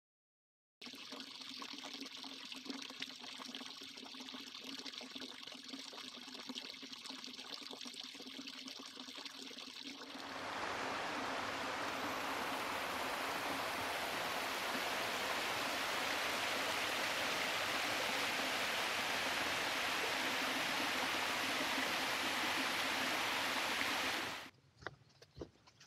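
Small mountain stream cascading over rock steps in a gully: a fainter rushing at first, growing louder and steady from about ten seconds in, then cutting off suddenly shortly before the end.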